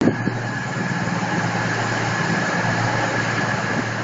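CrossCountry Voyager diesel multiple unit's underfloor diesel engines idling steadily at the platform, a constant hum with a steady higher whine. A couple of brief knocks at the very start.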